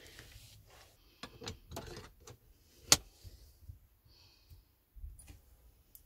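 Small metal clicks and knocks from handling and fitting parts of a 711 gear shifter assembly. One sharp click about three seconds in is the loudest.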